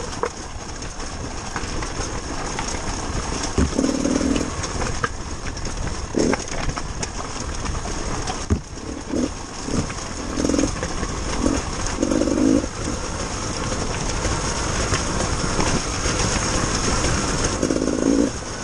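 Trials motorcycle running at low revs down a rocky lane, with short louder bursts of throttle several times and a few sharp knocks of the bike over stones.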